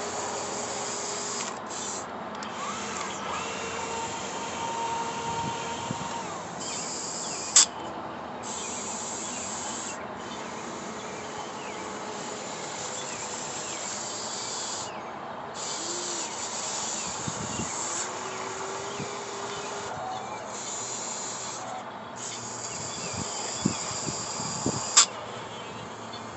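RC excavator's small electric drive whining in spurts as it digs, the high-pitched run cutting in and out every few seconds, with two sharp clicks, one at about 8 seconds and a louder one near the end.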